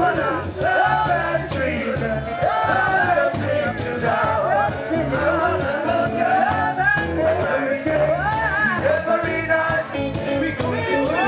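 Live reggae band playing, with bass and drums under a sung melody.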